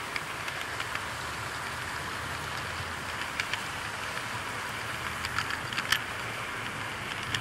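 00 gauge model train running on the layout, heard from a camera riding on it: a steady rolling rumble and hiss with scattered sharp clicks.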